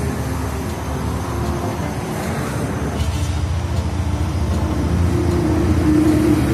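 Steady low rumble of a passing motor vehicle, growing louder toward the end.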